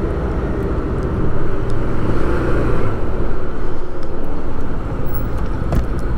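Motor vehicle running steadily, with a low engine hum under a continuous wash of road and wind noise.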